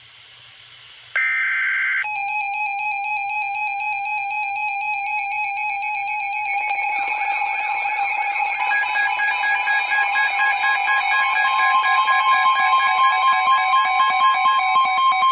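A brief burst of the emergency alert's digital header data, then weather radio alarms sounding together: steady electronic beeping tones from about two seconds in, joined about six seconds in by a warbling siren-like alarm and later by the steady 1050 Hz weather radio warning tone, the mix growing a little louder.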